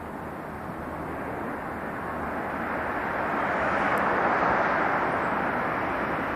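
R188 7 subway train approaching along the elevated steel structure of the Flushing line, a steady rushing rumble that grows louder over the first four seconds, then holds.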